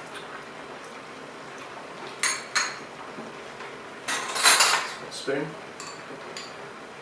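Utensils clinking against a ceramic bowl and a stainless-steel hot pot: two light clinks about two seconds in, a louder clatter lasting most of a second about four seconds in as broth is ladled from the pot, then a few light taps of a spoon in the bowl.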